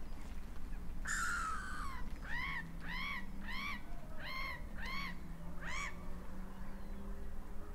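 A gull's long call: one harsh, drawn-out cry about a second in, then a run of six short ringing calls, evenly spaced, each rising and falling in pitch.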